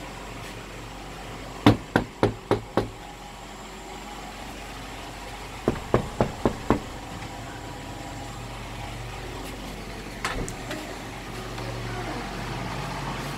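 Two quick runs of about five sharp clicks or taps, roughly four a second, and a couple more later, over a steady low hum.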